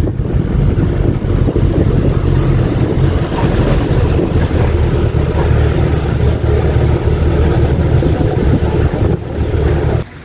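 Motor vehicle running steadily down a road, with engine and road noise heard from inside its open-sided cabin. The sound cuts off sharply near the end.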